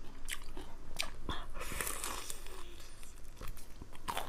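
Close-miked chewing of crispy fried chicken cutlet, with a few sharp crunches spread through the chewing.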